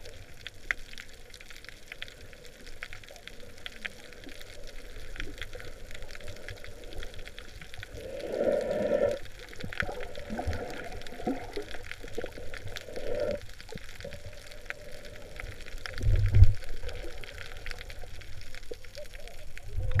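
Water heard from underwater: muffled sloshing and gurgling with many faint scattered clicks. A stronger gurgling swell comes about eight seconds in and another around thirteen seconds, and there is a low thump at about sixteen seconds.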